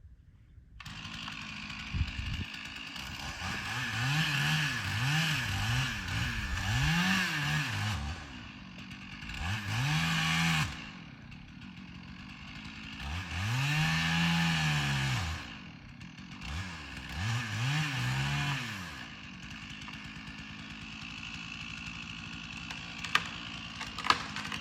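Chainsaw revving up and down repeatedly as it cuts into a tree being felled, dropping back to idle between cuts. A few sharp knocks near the end.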